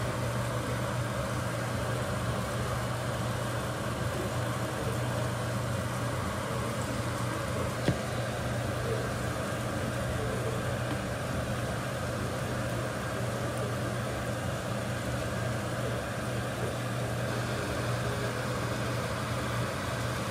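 Steady low mechanical hum with one sharp click about eight seconds in.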